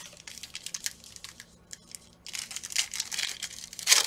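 Cards being handled with short rustles and taps, then a Panini Prizm football foil pack crinkling in the hands, loudest near the end.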